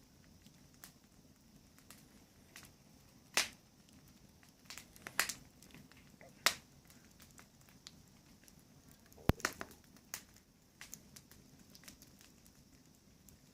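Wood fire burning in a washing-machine-drum fire pit, with a faint steady background and scattered sharp crackles and pops, a few of them loud.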